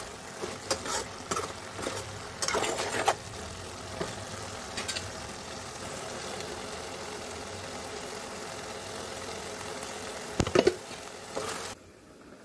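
A metal spoon stirring fish curry in a pot, scraping and clicking against the pot for the first few seconds. Then a steady hiss of the curry cooking on the stove, with two sharp knocks near the end before the sound drops off suddenly.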